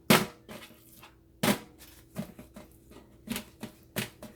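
Hands patting paper towels down onto raw T-bone steaks to blot them dry: two firm pats, then a run of lighter, quicker pats.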